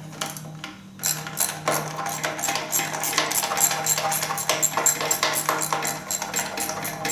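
Socket ratchet wrench clicking rapidly as bolts are turned out, starting about a second in, over a steady low hum.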